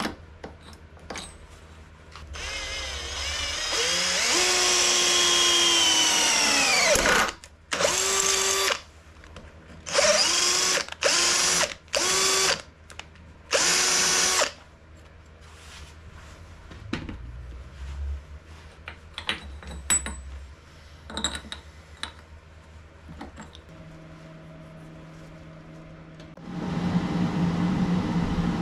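Electric drill running in one long burst whose pitch sags as it bites into the work, then about six short trigger bursts. Light clicks and knocks follow, and a steady hum sets in near the end.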